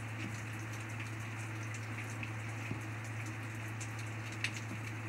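Steady rain falling, with individual drops ticking close by, one sharper tick about four and a half seconds in. A steady low hum runs underneath.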